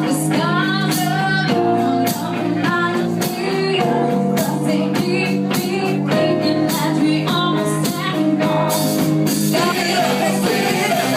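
Live cover band playing a pop-rock song: a steady drum beat under held chords, with a melodic line that bends in pitch above them.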